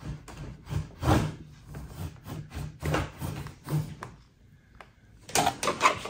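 Handling noise: a tape-wrapped wire rubbing and scraping against the Sea-Doo's plastic engine-bay parts as it is pulled and fed through, with light knocks and clicks, a short lull past the middle and a quick run of sharper knocks near the end.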